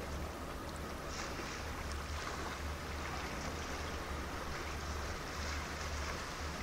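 Low steady hum of a large cruise ship's engines as it moves slowly past at close range, over a constant wash of water at the stone bank.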